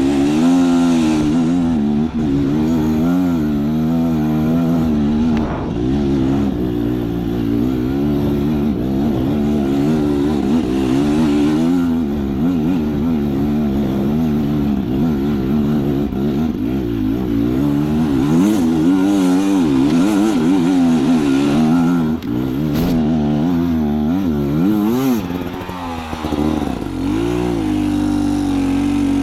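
Beta Xtrainer 300's single-cylinder two-stroke engine running, its revs rising and falling over and over as the throttle is worked, then holding a steadier note near the end.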